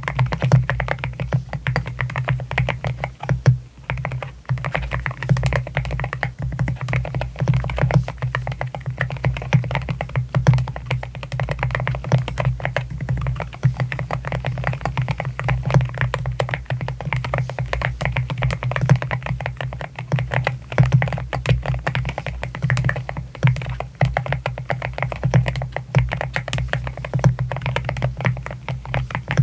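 Fast, continuous typing on an AKKO MU01 mechanical keyboard with wooden housing and Rosewood linear switches, keystrokes following one another in a dense stream. Soft background music plays underneath.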